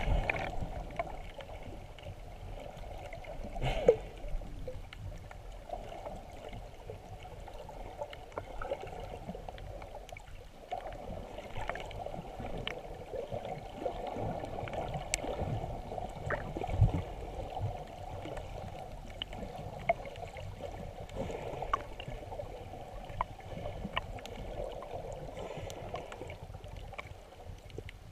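Muffled water sound heard with the camera underwater: a steady gurgling wash with scattered faint clicks, and a louder knock about 4 s in and another about 17 s in.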